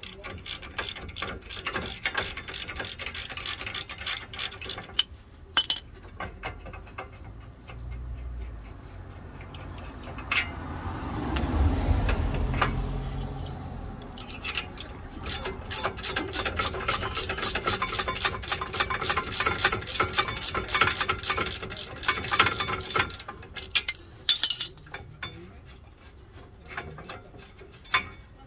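Socket ratchet clicking in quick runs as the two 18 mm caliper bracket bolts are backed out, with a louder, lower stretch of noise near the middle.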